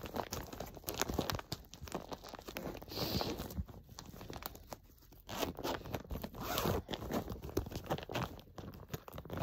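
Clear plastic bag crinkling and crackling as hands handle and open it, a little louder in the second half.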